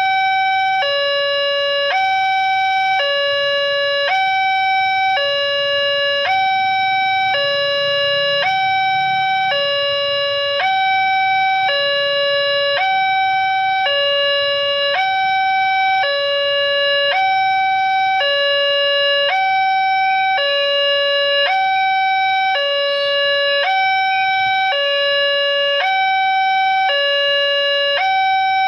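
Railway level crossing warning alarm sounding continuously: an electronic two-tone signal alternating evenly between a higher and a lower tone, about 0.7 s each. The crossing is closed for an approaching train.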